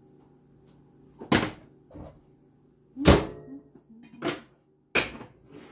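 Kitchen clunks as a door is shut and things are set down: five sharp knocks, the loudest about three seconds in, over a faint steady hum.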